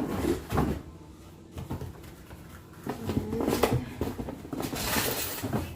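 Cardboard box and packaging rustling and scraping as a stainless steel kettle is worked out of a tight box, with irregular knocks and bumps, busiest near the end.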